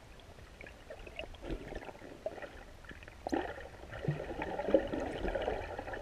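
Underwater sound picked up by a submerged camera: irregular gurgling and crackling of moving water, with a few sharp clicks and growing busier about halfway through.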